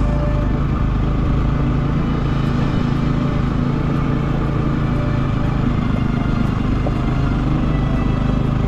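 Motorcycle engine running steadily as the bike is ridden along a rough off-road track.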